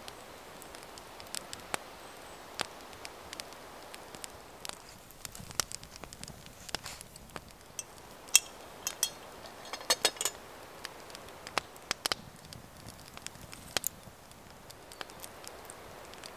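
Small wood fire crackling in an iron fire bowl, with irregular sharp pops and snaps over a faint steady hiss, a quick cluster of pops about two-thirds of the way through.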